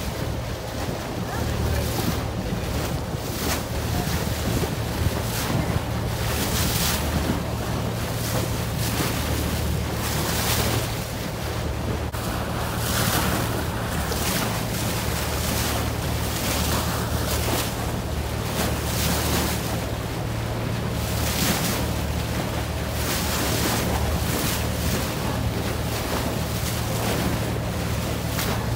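Boat engine running steadily under water rushing and splashing against the hull, with wind buffeting the microphone.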